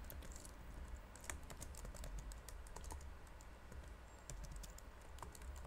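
Faint, irregular keystrokes on a computer keyboard as a line of code is typed.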